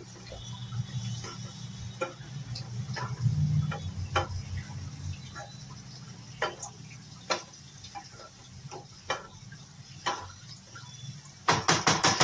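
A spatula stirring spinach in a nonstick kadai, knocking and scraping against the pan in irregular clicks about once a second, with a quick run of taps near the end.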